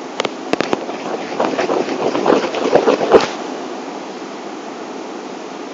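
Steady background hiss with a few sharp clicks, then a short stretch of rustling and clattering noise that ends in a sharp click about three seconds in.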